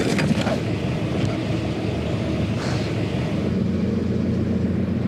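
Small motorboat's engine running steadily, a low hum with water noise around the hull.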